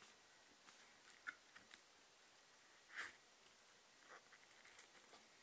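Faint crinkling and small ticks of thin clear plastic wrapping being pulled off a small model locomotive, with a slightly louder rustle about three seconds in.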